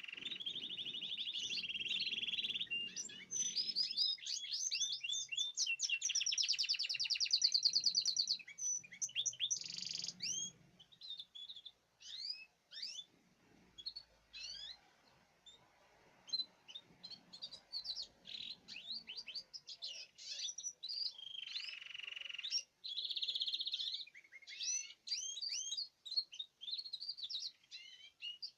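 Domestic canary singing: long, rapid trills and rolls for the first ten seconds or so, then scattered short chirps, with another fast trill late on.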